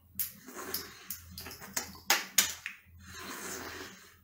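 Small cooked sea snails being sucked out of their shells by mouth: sharp sucking slurps and clicks of the shells, with a longer drawn suck about three seconds in.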